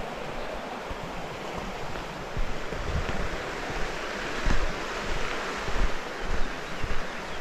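Wind buffeting the microphone over a steady rushing hiss, the gusts growing stronger and more uneven from a little over two seconds in.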